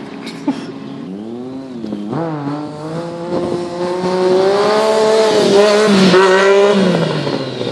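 Stunt motorcycle's engine revving up and down, then held at high revs and loudest through the second half as the bike is ridden on one wheel.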